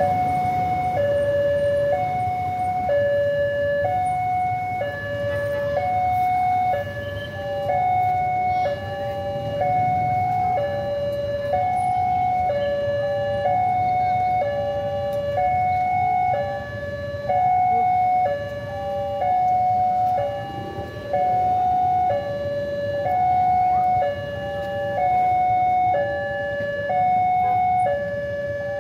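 Railway level-crossing warning alarm sounding its two-tone electronic signal: a higher note and a lower note alternate steadily, each held about a second, over a low rumble.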